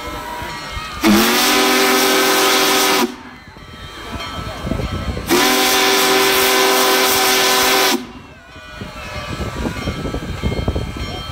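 Union Pacific Big Boy No. 4014 steam locomotive's chime whistle sounding two long blasts of several notes at once, the first scooping up in pitch as it opens; two long blasts is the signal that a train is releasing brakes to move off. Steam hisses between the blasts and builds again after the second.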